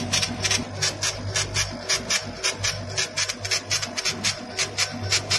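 CO2 laser engraver raster-engraving a glass bottle on a rotary attachment: the laser head shuttles back and forth, giving a rapid, even rasping stroke about eight times a second over a steady low hum.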